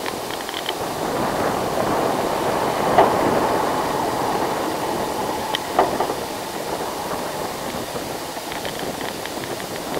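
Micro bus engine and tyres heard from a distance as a steady rumble while it drives past, with two sharp clicks about three and six seconds in.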